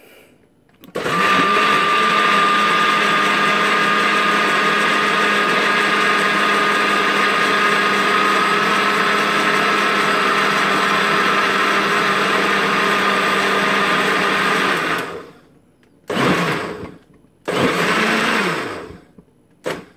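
Countertop jug blender motor running with a steady whine, blending melted bar soap and water into liquid soap. It starts about a second in and runs for about fourteen seconds, stops, then is pulsed twice briefly near the end.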